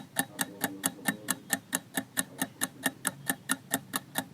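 Countdown-timer clock ticking sound effect: evenly spaced sharp ticks, about four a second.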